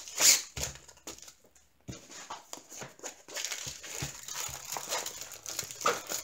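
Clear plastic wrapping crinkling and rustling as a rolled diamond painting canvas is handled and unwrapped. There is a sharp, loud crinkle about a quarter-second in, then a steady rustling crackle.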